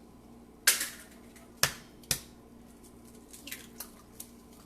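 Eggs being cracked against the edge of a bowl: three sharp knocks within about a second and a half, followed by a few lighter clicks.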